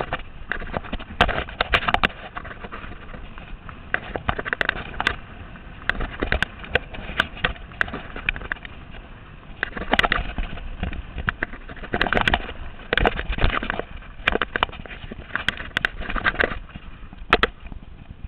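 Mountain bike clattering over a rough dirt trail on a descent: irregular knocks and rattles from the bike, over a steady rushing noise.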